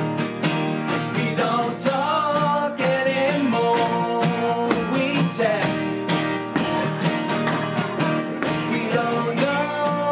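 Rock band playing a song live: strummed guitars over a steady drum beat, with a lead voice singing the melody from about a second and a half in.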